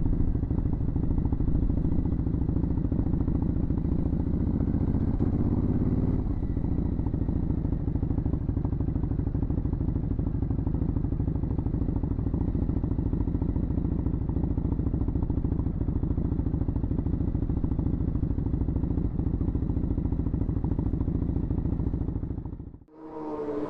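Ducati Hypermotard 939's L-twin engine running steadily at low revs as the bike rolls along slowly, with a slight rise in pitch about five seconds in. The sound fades out just before the end.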